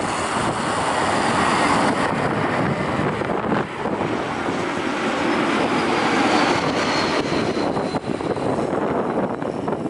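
Airbus A220 jet airliner passing low on final approach: steady jet engine noise, with a faint high whine that falls in pitch near the end.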